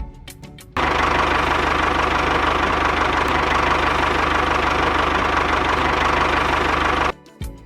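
A small engine running steadily for about six seconds, starting and stopping abruptly, with background music just before and just after it.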